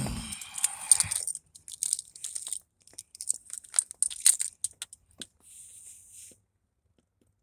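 Close rustling and crinkling handling noise with scattered sharp clicks, loudest in the first second or so and again about four seconds in, with a brief hiss near the end.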